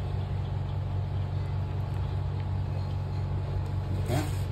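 Steady low machine hum, an even drone with no rhythm. A short voice sound rises briefly about four seconds in.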